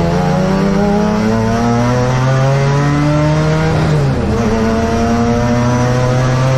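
Saloon race car's engine heard from inside the cockpit, accelerating with its pitch climbing steadily, then one upshift about four seconds in drops the revs before it climbs again.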